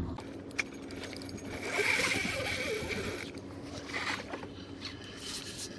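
Water and wind noise around a fishing kayak, with light rattling of tackle or gear.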